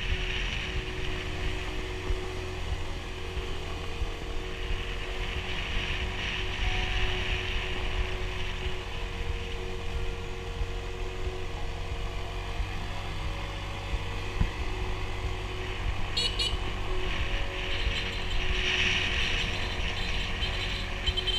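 Motor scooter being ridden along a road, its engine droning steadily under a constant rumble of wind buffeting the microphone.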